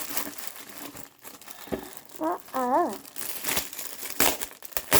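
Gift packaging crinkling and rustling in irregular crackles as it is handled and pulled open, with a brief wavering hum of a voice about halfway through.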